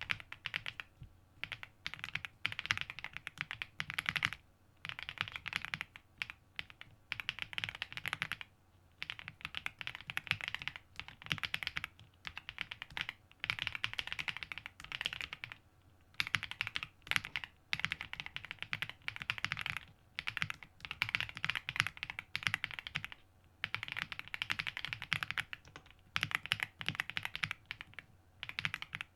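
Typing on a WOBKEY Rainy 75 mechanical keyboard with Kailh Cocoa switches, set straight on the desk without a deskmat. Runs of quick keystrokes last a second or two at a time and are broken by short pauses.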